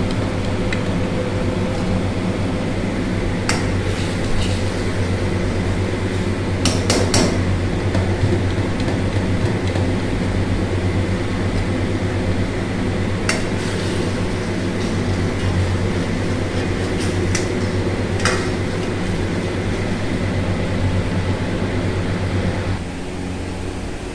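Metal ladle knocking sharply against a steel wok a handful of times over the steady roar of a gas wok burner with a low hum. The roar drops off near the end.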